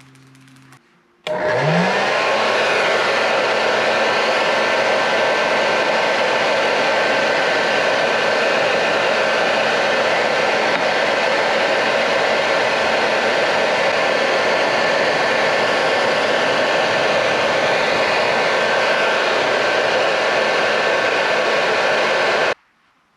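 Electric heat gun switched on: its fan motor spins up with a rising whine about a second in, then runs steadily with a loud rush of blowing air, and is switched off abruptly near the end.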